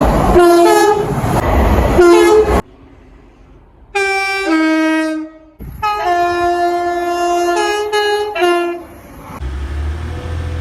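Class 185 diesel multiple unit's two-tone horn sounding several times, each blast stepping between a high and a low note, with abrupt cuts between soundings. The first two blasts sound over loud passing-train noise, a longer sounding in the middle switches notes repeatedly, and a low rumble comes in near the end.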